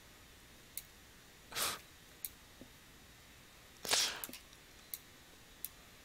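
Two short, breathy exhalations into a close microphone, with a few faint mouse clicks between them.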